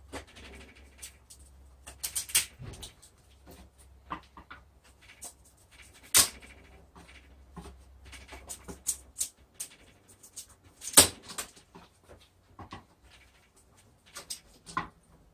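Wood cracking and snapping as a thin glued half-round strip is split and prised out of the groove of a wooden jig, with scattered small creaks and clicks and two sharp cracks, about six and eleven seconds in.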